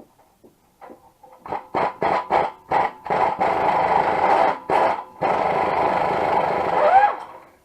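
A handheld power tool run in several short trigger bursts, then in two longer runs of a couple of seconds each, with a steady motor tone under the noise; it stops about seven seconds in.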